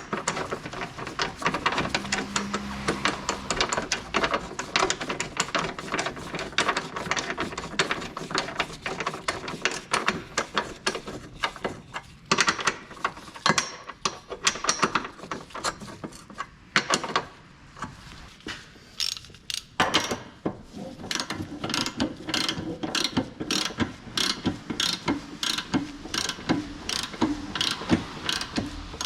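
Hand ratchet wrench clicking rapidly as a socket turns a bolt, pausing briefly about two-thirds of the way through, then clicking on in a steadier, evenly spaced run.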